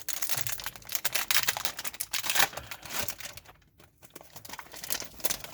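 A trading-card pack wrapper crinkling and tearing as it is handled and opened, with a short pause a little over halfway through.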